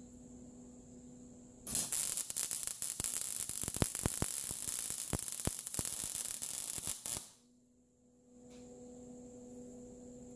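MIG welding arc crackling and sputtering as a bead is laid on a broken steel axle bracket. It starts about two seconds in, runs for about five and a half seconds full of sharp pops, and cuts off abruptly. A steady electrical hum sits under it before and after.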